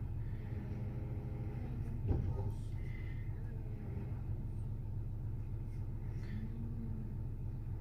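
Steady low background hum with a single sharp knock about two seconds in, as a metal spoon tips powdered pigment into a plastic jug of soap batter and stirs it.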